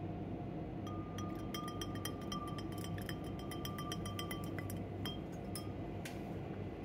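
Plastic spoon stirring quickly in a glass beaker, clinking against the glass about five times a second with a faint ringing from the beaker. It stops, and a single sharper knock follows about a second later.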